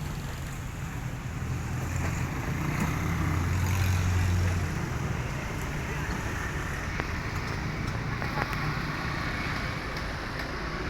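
Low vehicle rumble over a steady noise bed, swelling a couple of seconds in and easing after about five seconds.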